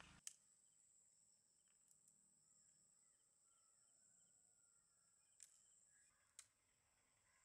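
Near silence: faint outdoor ambience with a steady high-pitched insect drone and a few soft clicks.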